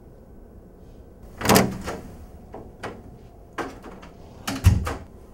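An office door being opened and shut: a run of clicks and knocks from the handle and latch, ending in a heavier thump near the end as the door closes.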